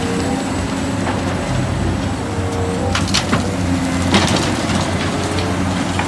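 Large Caterpillar crawler excavator at work: its diesel engine and hydraulics run steadily, with a few sharp clanks and crunches of rock and soil in the bucket, about three seconds in and again a second later.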